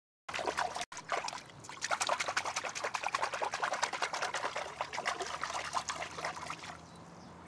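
Water splashing and trickling in a small inflatable paddling pool as hands move through it: a quick, irregular run of small splashes that starts about a third of a second in.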